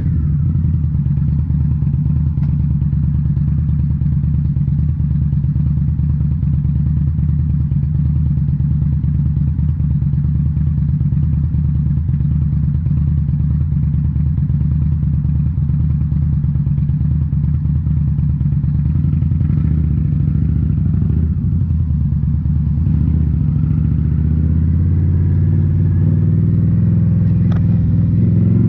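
2018 Indian Scout Bobber's V-twin engine, breathing through Rinehart slip-on mufflers, running steadily while riding. Over the last several seconds the engine note rises as the bike accelerates.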